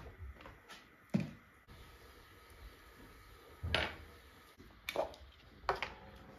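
Dishes being handled: a dull knock about a second in, then three sharper clinks in the second half, from a lidded metal pot set on a wooden board and china plates being picked up.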